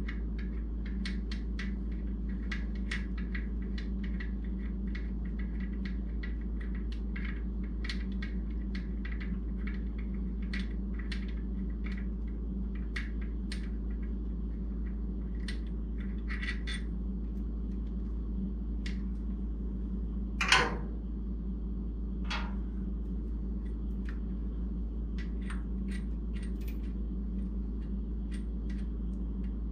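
Light metallic clicks and clinks of hand tools working on the engine, scattered irregularly over a steady low hum, with one louder clank about two-thirds of the way through.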